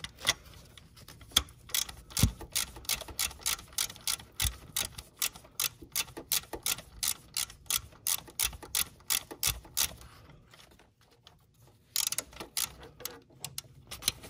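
Socket ratchet wrench clicking in a steady run of about three or four clicks a second as it is swung back and forth on an engine bolt. The run stops about ten seconds in, and a short burst of clicks follows near the end.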